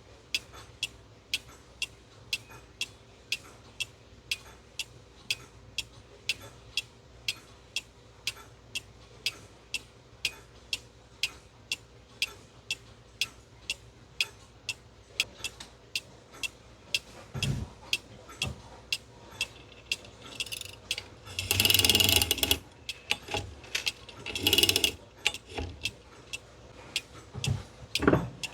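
Black Forest cuckoo clock movement ticking steadily, about two ticks a second. In the last third come a few low clunks and two louder bursts of whirring, rattling gearwork.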